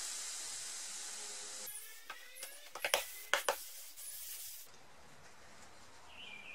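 Hot clothes iron pressed onto a wet cloth over wood, the water hissing into steam, with a few light knocks as the iron is moved; the hiss dies away about five seconds in. The steam is swelling crushed wood fibres to raise a hammer dent.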